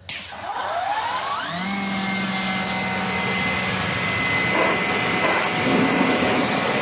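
Ego HPW2100 battery-powered electric pressure washer starting up: its motor and pump whine rises in pitch over about a second and a half, then runs steady under the loud hiss of the high-pressure water spray.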